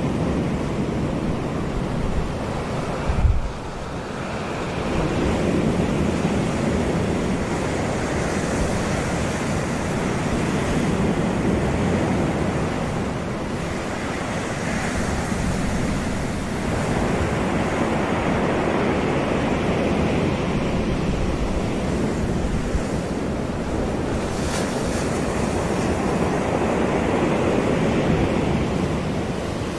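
Surf breaking and washing up on a beach, a steady rush that swells and ebbs every few seconds, with wind on the microphone and a brief low thump about three seconds in.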